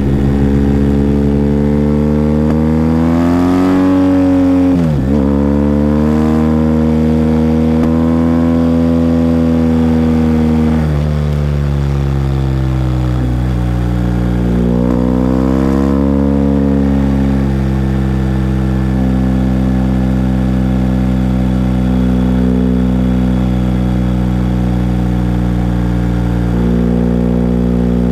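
BMW R1250GS boxer-twin engine running on the move. Its pitch climbs and then drops sharply several times in the first half, about five, eleven and thirteen seconds in, then settles to a steadier cruise note with a small rise near the end.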